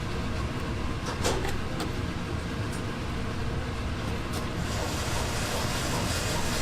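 Food-shop kitchen background noise: a steady hum with a couple of light clicks about a second in, and a hiss that joins shortly before the end.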